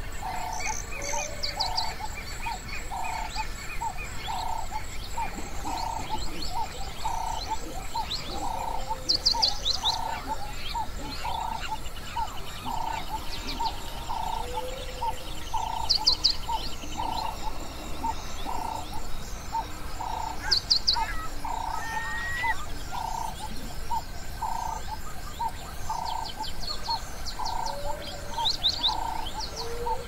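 Wild bird chorus. One short mid-pitched call repeats steadily about every three-quarters of a second, while other birds break in with brief, high, fast chirping trills about five times.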